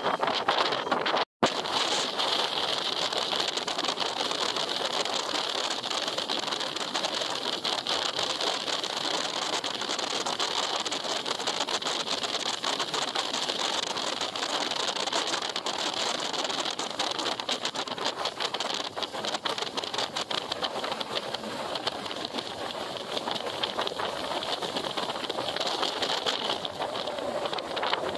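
Steady rushing noise of a moving motorcycle, engine and wind together. It cuts out for an instant about a second in.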